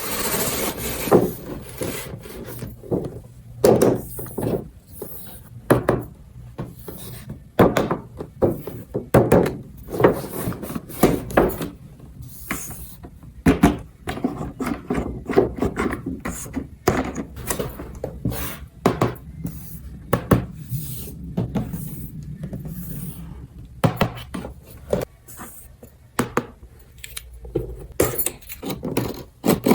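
Small hard plastic toy pieces being handled, with irregular clicks, knocks and rubbing all through.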